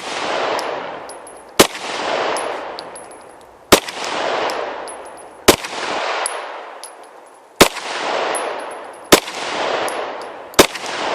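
Canik TP9 9mm pistol fired six times in slow, aimed succession, a shot every one and a half to two seconds, each crack followed by a long rolling echo.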